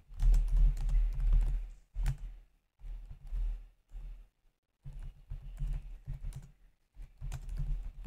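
Typing on a computer keyboard: runs of quick key clicks with a dull thud under them, broken by short pauses.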